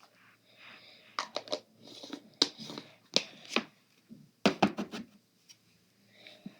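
Bingsu slime being squished and pressed together in the hands, its crunchy beads crackling and popping in quick bursts, loudest a few times through the middle.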